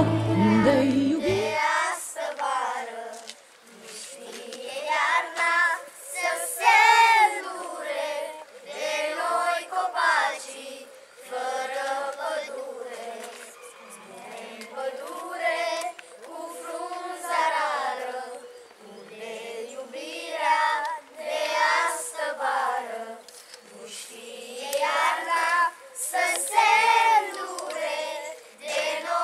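A group of children singing together without accompaniment, in phrases a few seconds long. A backing music track cuts off about a second and a half in.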